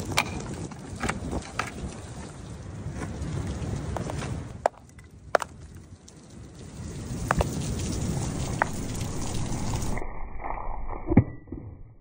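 Outdoor wind rumble on the microphone, rising and falling, with a few scattered sharp clicks and knocks. The sound changes abruptly about ten seconds in, and a louder knock follows shortly after.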